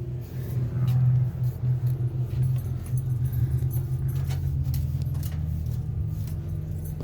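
Motor vehicle engine idling with a steady low hum, with scattered light clicks and rattles over it.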